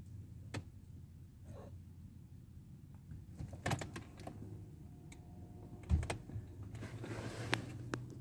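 Cats moving around a car's front seats and console: scattered clicks and rustles of paws and claws on plastic and upholstery, with a heavier thump about six seconds in, over a low steady hum in the cabin.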